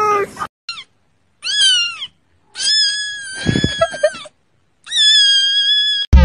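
A kitten meowing in loud, high-pitched cries: a short chirp, a falling meow, then two long drawn-out meows.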